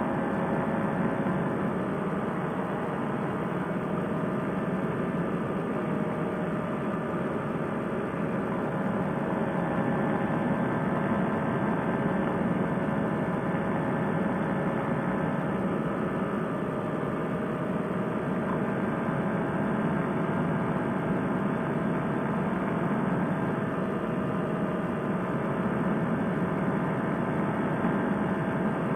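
Fresh Breeze Monster paramotor engine and propeller holding a steady cruise throttle in flight, a constant drone mixed with rushing air.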